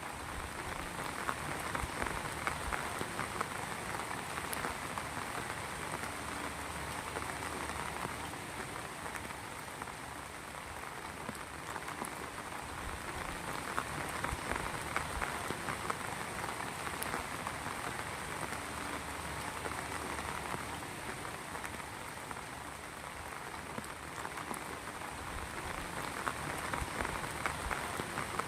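Heavy rain falling steadily, a dense patter of drops striking a surface, with the spatter waxing and waning slightly.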